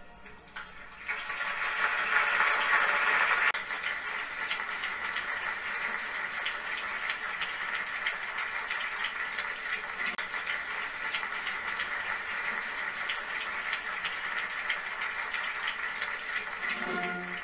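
Crowd applause, heard as played back through a television. It swells for the first few seconds and then carries on evenly.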